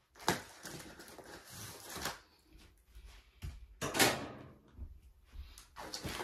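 A cardboard box and flat-packed desk parts being handled: several separate scrapes and knocks, the loudest about four seconds in.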